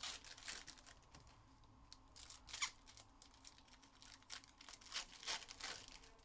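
Trading cards and their packaging being handled: faint, scattered rustles and light clicks, the loudest about two and a half seconds in and a cluster near the end.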